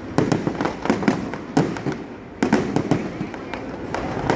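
Tet fireworks display going off: a dense run of sharp bangs and crackles, with louder clusters about once a second in the first half.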